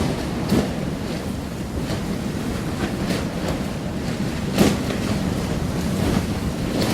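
Storm surf breaking, with strong wind buffeting the microphone; two sharper, louder gusts stand out, about half a second in and about four and a half seconds in.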